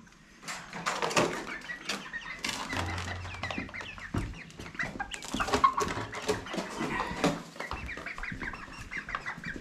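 Chickens clucking inside a wire dog crate, many short calls overlapping, with the crate's wire rattling as it is lifted and carried.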